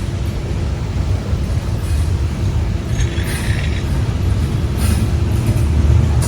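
Heavy freight train climbing a grade, a steady low rumble throughout, with a brief metallic screech about three seconds in and a shorter one near five seconds.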